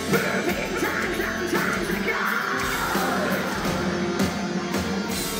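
Metal band playing live through a club PA, with distorted guitars, bass and drums under a female lead vocal. The vocal line slides down in pitch around the middle.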